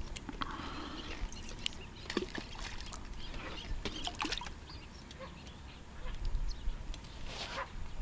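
Scattered light clicks and knocks from fishing tackle and bait boxes being handled, with a duck calling on the water.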